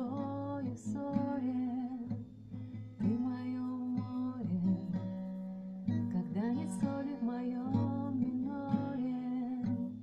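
A woman singing a song while strumming an acoustic guitar.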